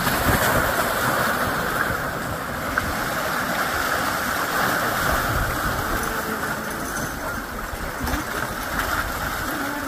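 Shallow surf washing and churning in a steady rush of water around a large shark lying at the water's edge.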